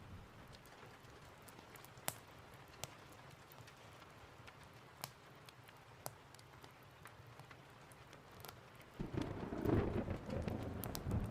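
Steady rain hiss with occasional sharp pops from a crackling wood fire, then a loud low rumble of thunder starting near the end.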